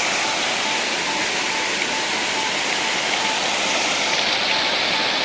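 Waterfall water rushing and splashing into a pool, a steady, even noise.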